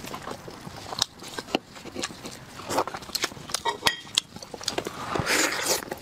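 Close-miked eating sounds: braised pork ribs in sticky sauce pulled apart by gloved hands, with the meat chewed. It comes as a run of sharp wet clicks and smacks, with a longer burst of tearing around five seconds in.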